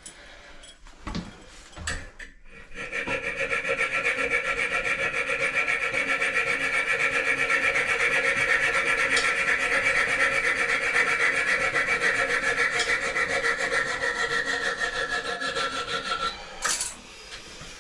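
A small power tool cutting through a metal toilet closet bolt: a steady whine with a fast, even grinding flutter that starts a couple of seconds in and runs for about fourteen seconds. Its pitch sags slightly just before it stops, near the end. A few light knocks come before it.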